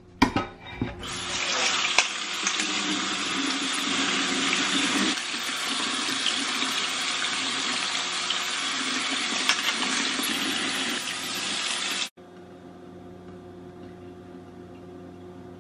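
Kitchen tap running steadily into a stainless steel sink, the water splashing through a metal colander as button mushrooms are rinsed by hand. The water stops abruptly near the end.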